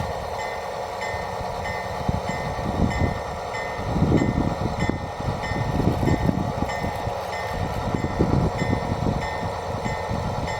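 G-scale model train running along garden railroad track: a steady running rumble with a faint tone pulsing about twice a second and uneven low knocks, loudest in the middle.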